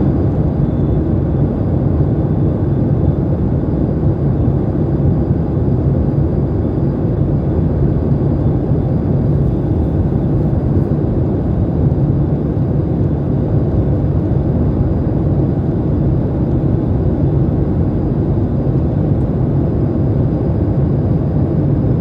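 Boeing 737-800's CFM56-7B turbofan engines and airflow heard inside the passenger cabin: a steady, loud, deep noise with a faint steady high whine above it.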